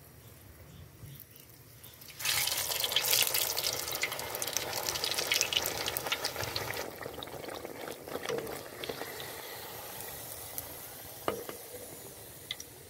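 Hot oil sizzling and crackling as a batter-topped naan goes into it for deep-frying. It starts suddenly about two seconds in and slowly dies down, with a couple of light clicks near the end.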